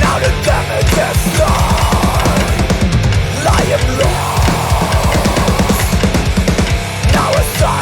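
Loud heavy-metal-style music: a full band with rapid, driving drumming under dense, heavy instruments.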